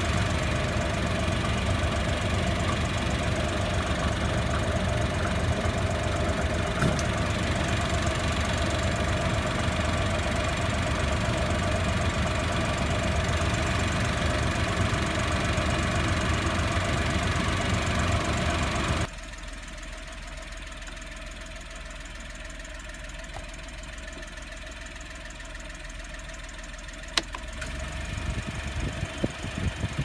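Honda Acty HH5's three-cylinder engine running steadily, heard close up through the open engine hatch, with a steady whine over the engine noise. About two-thirds of the way in the sound drops abruptly to a much quieter engine hum. A single click follows near the end, and then the noise grows louder and more uneven.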